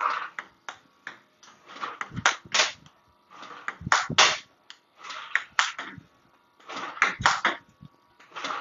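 Table tennis ball knocking off the table and the bat in a rally of forehand loop drives: a series of sharp clicks, coming in quick pairs and threes about once a second.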